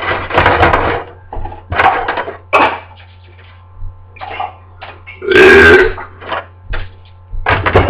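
A person's voice in short, wordless bursts, the loudest and longest about five and a half seconds in, over a steady low hum.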